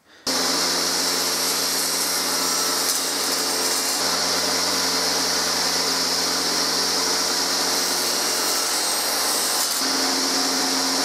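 Craftsman table saw running steadily, motor hum and blade whine with a bright hiss, as a board is passed over the blade to cut away the waste around a tenon. The sound shifts slightly twice, about four seconds and ten seconds in.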